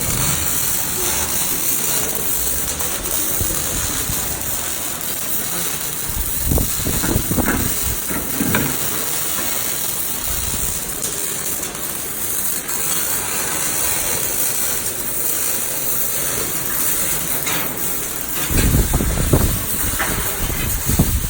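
Electric arc welding in progress: a steady, loud crackling hiss of the welding arc, with a few low rumbling bumps about a third of the way in and near the end.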